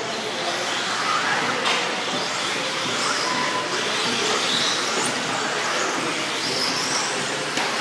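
Several 1/10-scale electric 4WD RC buggies racing: their motors and drivetrains whine, rising and falling in pitch as they speed up and slow down, over a steady hiss of tyres on the dirt, with a couple of sharp clicks.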